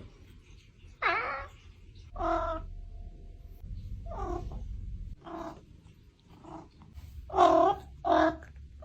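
A domestic cat meowing repeatedly: about seven short meows spaced roughly a second apart, the loudest two near the end.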